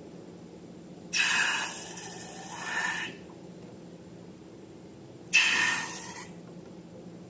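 Two bursts of rubbing, hissing noise from balloons and slime being handled, each starting suddenly and then fading, the first about a second in and the second near the end.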